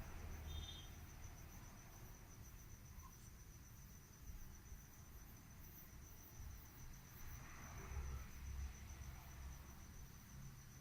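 Quiet room tone with a faint, steady, high-pitched pulsing trill and a low rumble underneath.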